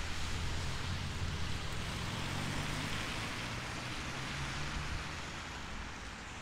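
Steady rain hiss, with a low rumble underneath that fades after about five seconds.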